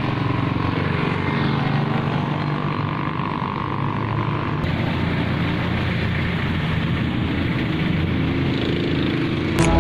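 Nissan GT-R's twin-turbo V6 engine running as the car drives along the road, mixed with passing traffic. The sound changes abruptly about four and a half seconds in.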